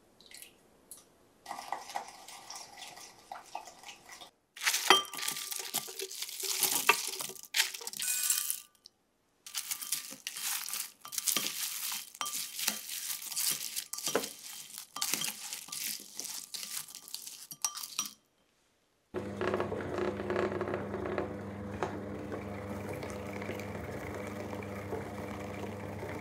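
A wooden spatula scrapes and clinks in a glass bowl as fried black beans and small dried fish are tossed with sugar and soy sauce, a busy patter of small knocks and rattles. About 19 seconds in this gives way to the steady motor hum of an electric mochi maker kneading rice into mochi.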